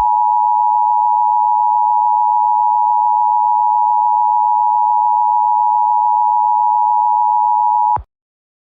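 Emergency alert attention tone: a loud, steady tone held for about eight seconds, then cutting off suddenly, signalling that an emergency message follows.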